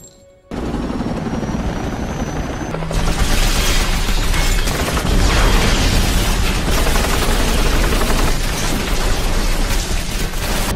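Film soundtrack of a blast: a sudden loud boom about half a second in, then a sustained rumble with crashing debris that swells a few seconds later, under dramatic music.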